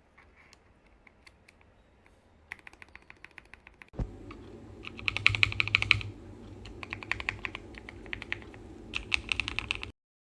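Typing on a mechanical keyboard fitted with KTT Strawberry linear switches: faint, scattered keystrokes at first, then louder quick runs of key clicks from about four seconds in, stopping abruptly near the end.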